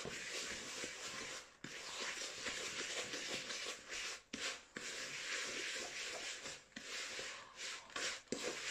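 A wooden spoon stirring and scraping damp crumbs of crushed chocolate digestive biscuit and melted butter around a plastic bowl. The scraping is steady, with a few brief pauses.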